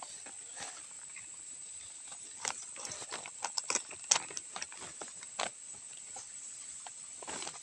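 Knife chopping eel into chunks on a plastic sack: a scatter of irregular taps and knocks as the blade and pieces hit the plastic, the sharpest about four seconds in.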